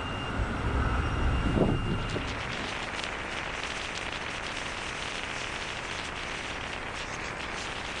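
Sea water rushing and splashing along a warship's bow, mixed with wind. For about the first two seconds there is a low rumble and a faint steady whine. After that it turns to a hiss of spray with many small splashes.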